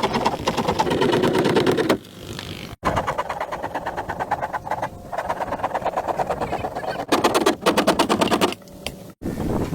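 Small single-cylinder motorbike engine running with a rapid, even popping of exhaust pulses, driving a home-built boat. The sound changes level abruptly a few times, as at edit cuts.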